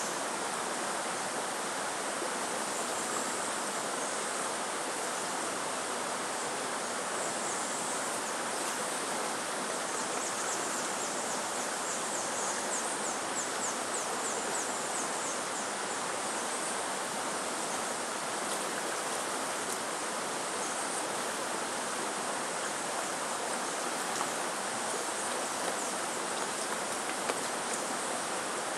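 Steady outdoor background noise, an even rush like running water, with a run of rapid high chirps from about ten to fifteen seconds in.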